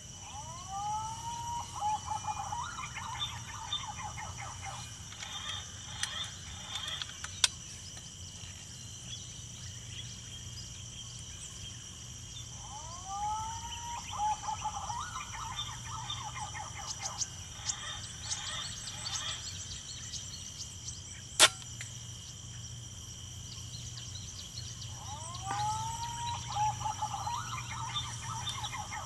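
A whistled bird song, a rising note followed by a quick run of notes, repeated three times about twelve seconds apart over a steady high-pitched insect drone. A single sharp click sounds about twenty-one seconds in.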